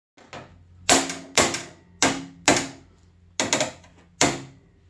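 About seven sharp hammer blows on the metal end of a snowmobile's tunnel, loosely in pairs, each ringing briefly. The end is being flattened against a quarter-inch steel plate so the tunnel roll can slip over it.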